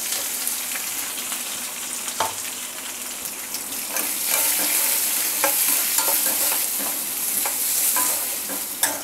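Chopped onions sizzling in hot oil in a stainless steel kadai, a steady frying hiss. A metal ladle stirs them, scraping and knocking against the pan several times, with a sharper knock near the end.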